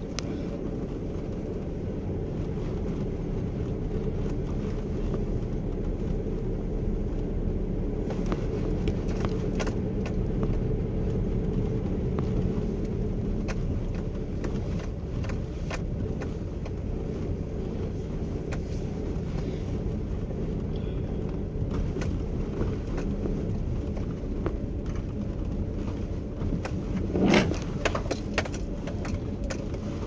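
Car driving slowly over a sandy forest dirt track, heard from inside: a steady low rumble of engine and tyres, with scattered small knocks from the rough surface and one louder, sharp knock near the end.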